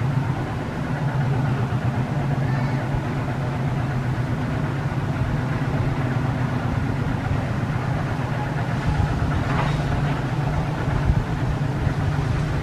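A steady low engine hum, like a motor vehicle idling, runs under a background of noise. A faint, brief higher sound comes about ten seconds in.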